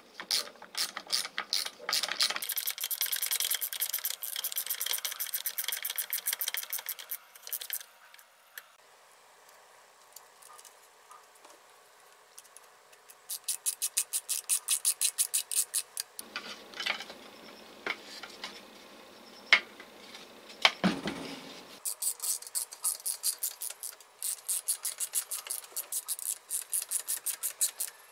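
Hand ratcheting screwdriver clicking as screws are run into a band saw's motor housing: runs of quick, even clicks, several a second, each lasting a few seconds. A few separate knocks come between the runs, one of them sharp, partway through the second half.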